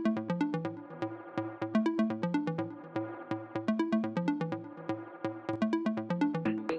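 Electronic background music with a steady beat and repeating synthesizer notes.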